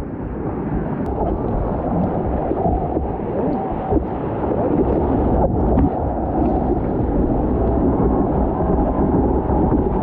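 Whitewater rushing and churning around a surfboard riding a breaking wave, picked up by a camera mounted on the board: a loud, steady, muffled rumble of water.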